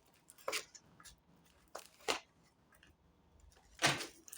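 Cards being handled and laid down: about four short snaps and rustles, the loudest near the end.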